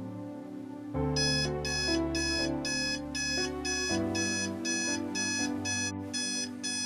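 Digital bedside alarm clock beeping in a fast, even rhythm, starting about a second in, over soft background music.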